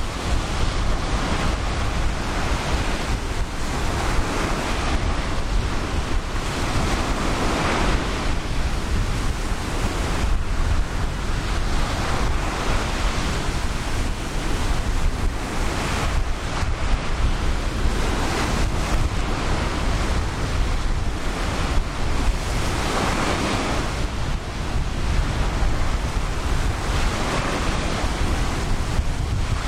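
Ocean surf washing onto the beach, waves breaking in swells every few seconds. Wind rumbles low on the microphone throughout.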